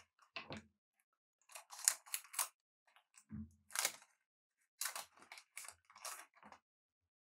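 Trading cards being handled and slid past one another in the hand, a series of short papery swishes and rustles with a soft knock on the table about three seconds in.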